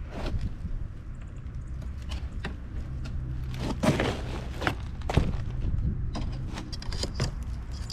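Irregular clicks and knocks of plastic retaining clips being worked off a car radiator, with the loudest knocks about four and five seconds in, over a low steady hum.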